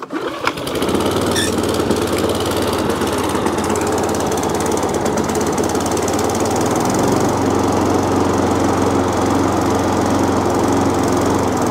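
The petrol engine of an old 1989 Flymo lawn mower catches just after being pull-started on choke. It settles within about half a second into a steady run.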